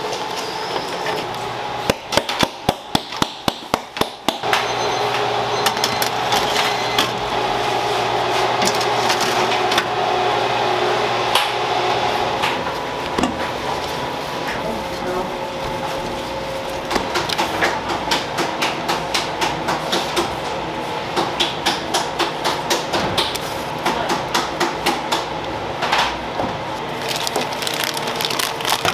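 A metal baking tray of piped macaron shells rapped hard on a steel counter about nine times in quick succession, knocking the air bubbles out of the batter. Later a spatula scrapes and slaps buttercream filling around a steel mixing bowl in quick, regular strokes.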